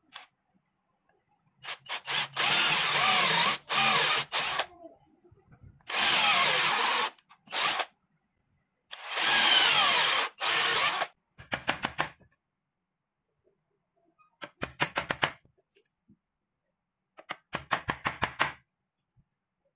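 Electric drill with a twist bit boring holes into a wooden board: three runs of a couple of seconds each in the first half. Later come three short bursts of rapid knocks as a chisel is worked into the row of drilled holes to clear out the slot.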